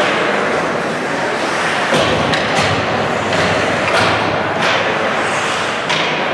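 Ice hockey play: skates scraping on the ice under a steady din, with several sharp knocks and thuds from sticks, puck and boards.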